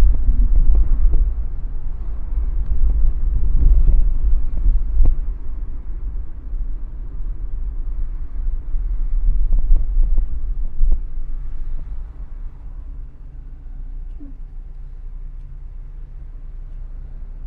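Low, uneven rumble of a car driving on the road, easing about twelve seconds in to a quieter, steady low hum.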